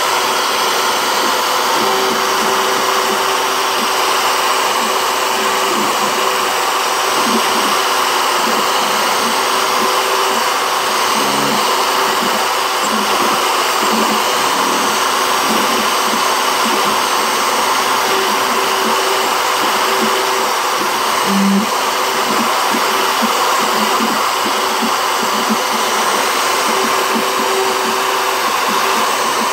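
CNC router spindle running at a steady high-speed whir while its bit cuts lettering into a wooden plaque.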